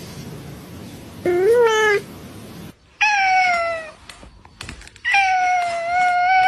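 Domestic cat meowing three times: a short meow that rises and then falls about a second in, a falling meow near the middle, and a longer, fairly level meow near the end.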